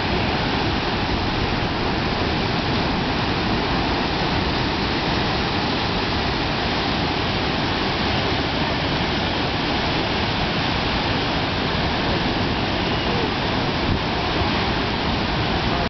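Ocean surf breaking, a steady, even rushing roar with no rise or fall.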